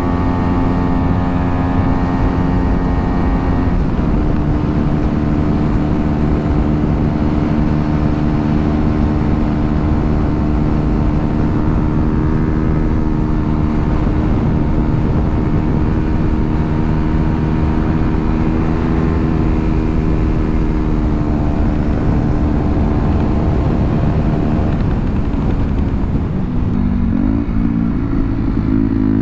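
KTM Duke 125's single-cylinder four-stroke engine running at steady revs while riding. The engine note shifts about four seconds in and changes again, with revs moving, near the end.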